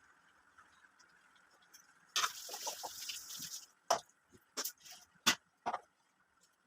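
Kitchen work sounds: liquid poured or splashed for about a second and a half, then four sharp clinks of utensils.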